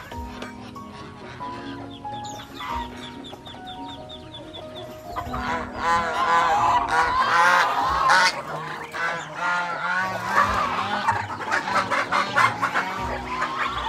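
Domestic geese honking, getting much louder and denser about five seconds in, with chickens clucking and soft background music underneath.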